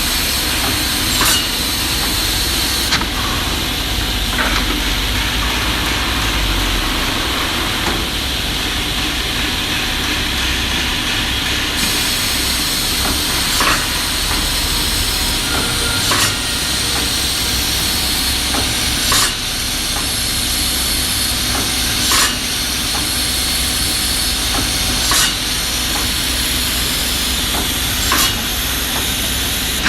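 Automatic woodworking cutting-and-drilling machine running with a steady hiss, and a sharp clack about every three seconds as it cycles.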